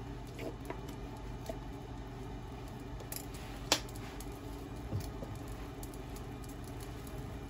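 Chicken stock granules shaken from a jar into water and cooking sake in a frying pan, then small scattered ticks and patters as the liquid heats. A sharp click about halfway through, and a duller knock about a second later.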